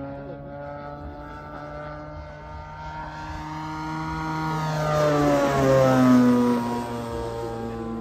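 Large RC Cassutt racer's EME 60cc two-stroke petrol engine, turning a 22x10 propeller through a canister muffler, flying past. The engine note grows louder from about three seconds in, then drops in pitch around five to six seconds in as the plane passes.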